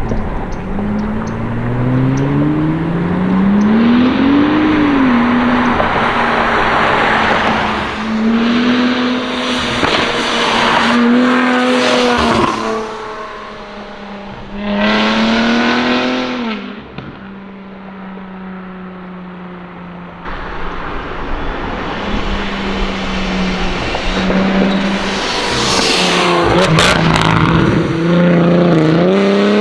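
A RIPP-supercharged 3.6-litre V6 in a Dodge Challenger, running through catless downpipes and active mufflers, accelerates hard several times. The engine pitch climbs and then drops at each gear change. Around the middle it settles to a quieter steady run, then pulls hard again, with a few sharp cracks from the exhaust near the end.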